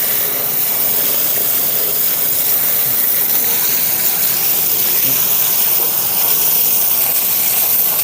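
Water spraying hard from a hose nozzle, hosing mud out of a flooded gas furnace: a steady, loud hiss.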